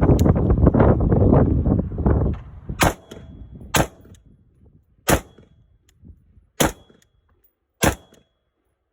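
Five unsuppressed rifle shots from a 10.3-inch-barrel 5.56 rifle with an AAC Blackout flash hider, fired singly about one to one and a half seconds apart, starting about three seconds in. Before the shots there are about two seconds of loud rushing noise.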